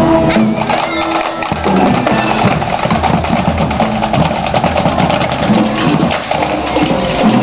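Marching band: the brass holds a chord that cuts off about a second and a half in, then the drumline plays a cadence of quick, rhythmic drum strikes.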